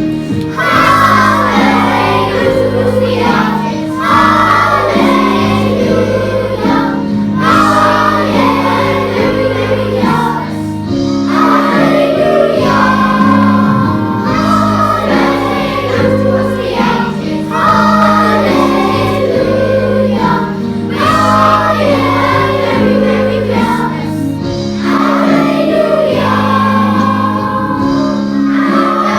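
A children's choir sings a song over an instrumental accompaniment of held chords.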